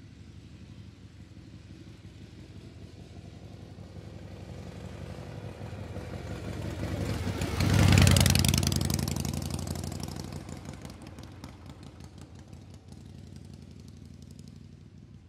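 A motor vehicle's engine passing by: its hum swells steadily to a loud peak about halfway through, then fades away.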